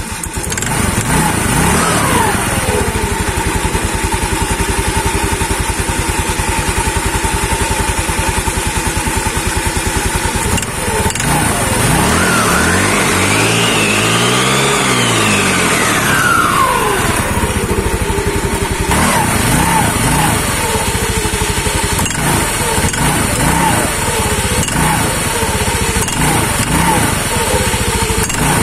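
Yamaha Mio Sporty scooter's single-cylinder four-stroke engine running at idle, revved once about twelve seconds in, its pitch climbing and falling back over about five seconds before settling to idle again. A steady thin whine runs alongside the engine throughout.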